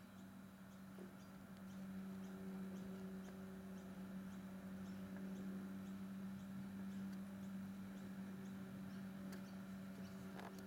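Camcorder zoom motor humming steadily at one low pitch as the lens zooms out, starting about a second in.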